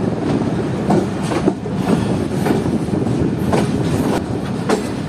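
Pak Business Express passenger coaches rolling over rail joints and points as the train runs into a station platform: a steady rail rumble with wheel clicks at uneven intervals.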